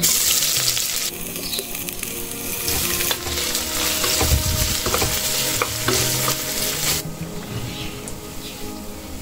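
Food sizzling loudly in hot oil in a pan while it is stirred, with a few taps of the utensil against the pan. The sizzle starts suddenly and dies down about seven seconds in.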